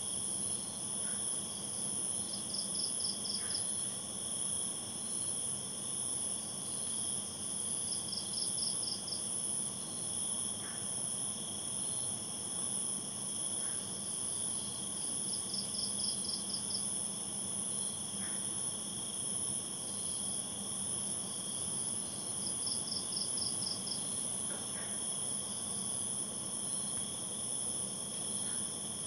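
Night insect chorus with crickets: a steady, high-pitched trill, with a short burst of rapid chirps recurring about every six or seven seconds.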